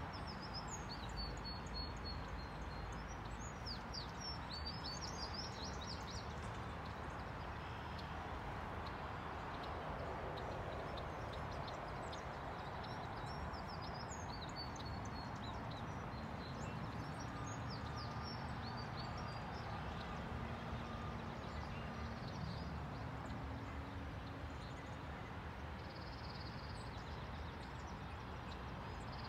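Small birds chirping in short high bursts, a cluster in the first few seconds and another near the middle, over a steady rush of outdoor background noise.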